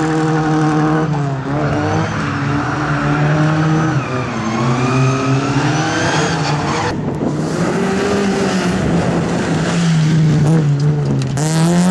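Competition car's engine on a slalom run, revving hard: the pitch climbs, drops at gear changes and climbs again, with a sharp crack about seven seconds in.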